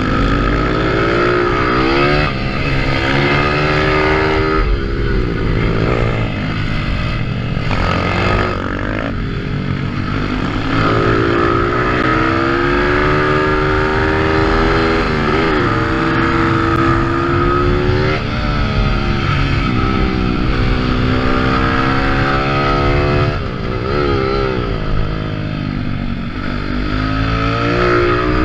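Onboard sound of a 140cc pitbike's single-cylinder engine at racing speed. Its pitch climbs repeatedly as it revs out through the gears, then drops back between the climbs.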